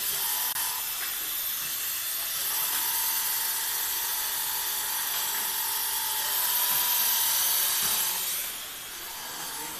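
Seamless fabric bonding machine running: a steady hiss with a faint steady whine that joins a couple of seconds in, both dropping a little near the end.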